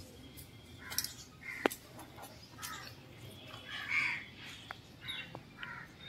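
Crows cawing several times, with a single sharp click a little over a second and a half in.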